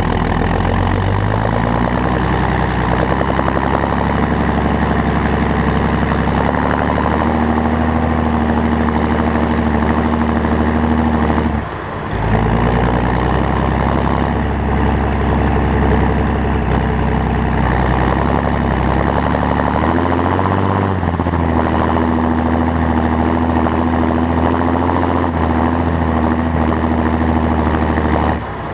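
John Deere 7530 tractor's six-cylinder turbo diesel running steadily under load, with a faint high whistle that rises and falls. The engine sound dips briefly about twelve seconds in and again near the end.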